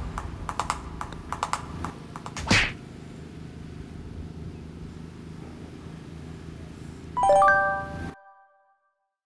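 Light rhythmic clicking for the first couple of seconds, then a single sharp knock of a putter striking a golf ball about two and a half seconds in, over steady outdoor hiss. Near the end a bright rising chime sound effect rings briefly, then the sound cuts out.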